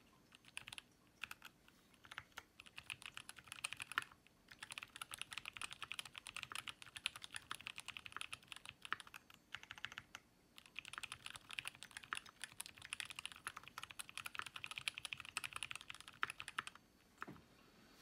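Typing on a TX60 HHKB-layout mechanical keyboard with Zealio 62 g tactile switches lubed with Krytox 105. A fast, even stream of keystrokes starts slowly in the first couple of seconds, has short pauses about four and ten seconds in, and stops about a second before the end.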